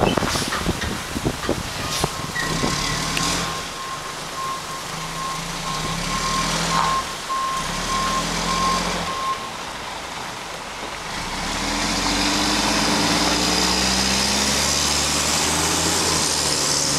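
Mack MR garbage truck with a Heil front-loader body. A few knocks in the first couple of seconds, then its backup alarm beeping steadily for about seven seconds. Near the end the diesel engine revs up, rising in pitch as the truck pulls away.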